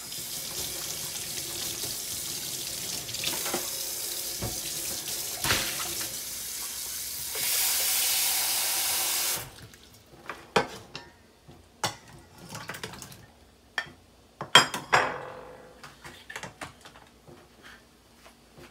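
Kitchen tap running for about nine seconds, louder for its last two seconds, then shut off abruptly. After it come scattered knocks and clinks as cut potato chunks go into a stainless steel saucepan.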